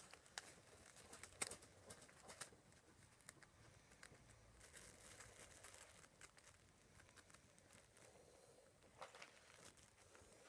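Near silence with faint scattered rustles and light clicks, one a little sharper about a second and a half in.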